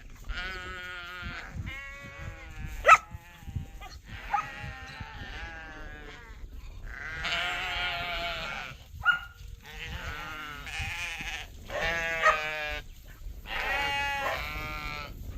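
Sheep bleating again and again, about eight long wavering calls with short gaps between them. A single sharp knock comes about three seconds in.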